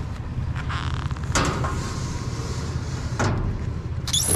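Knocks and scrapes of discarded items being moved around in a dumpster, with a couple of louder clunks and a short squeak near the end, over a steady low rumble.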